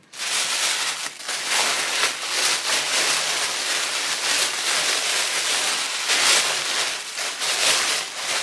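Packaging being unwrapped by hand: continuous crinkling and rustling with dense small crackles as wrapping is pulled open around the contents of a parcel.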